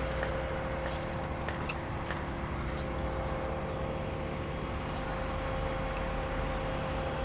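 Steady machinery hum with a constant tone and low rumble, with a few faint light clicks over it.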